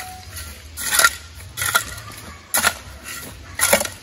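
A long-handled hand tool striking and scraping into soil and stones, about five strokes roughly one a second.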